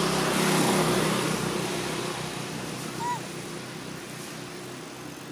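A motor vehicle passing: engine hum and road noise swell to a peak in the first second, then fade slowly away. A single short high chirp about three seconds in.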